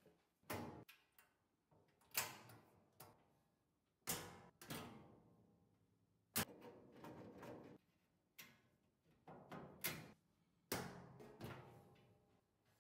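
Metal lower cabinet door of a Traeger Silverton 620 pellet grill being fitted onto its hinge pins and moved by hand. It gives about a dozen irregular knocks and clanks, each ringing briefly.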